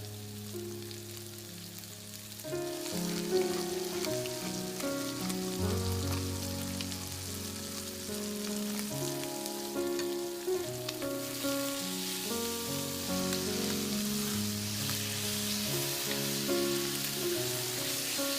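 Food sizzling as it fries in a hot pan, over gentle background music; the sizzling grows louder about eleven seconds in.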